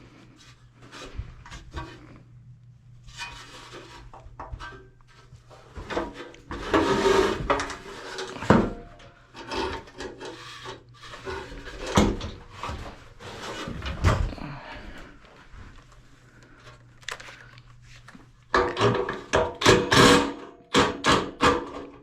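Parts of a fan coil unit's blower motor assembly being handled and worked loose: rubbing, scraping and scattered clicks and knocks, with a quick run of knocks near the end.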